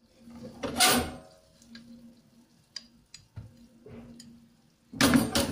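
Kitchenware being handled: scattered light knocks and clicks, with two louder bursts, one about a second in and one near the end.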